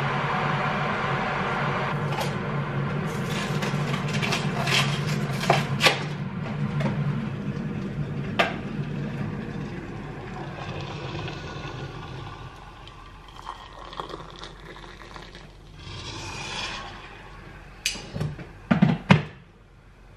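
Kitchen activity: a steady humming appliance dies away about halfway through, with scattered light clicks, a short rush of noise, and a few loud clinks and knocks near the end.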